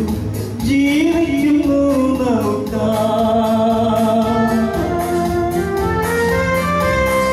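A man sings a hymn into a microphone, amplified through a PA loudspeaker, with held notes that glide between pitches over instrumental accompaniment and a steady beat.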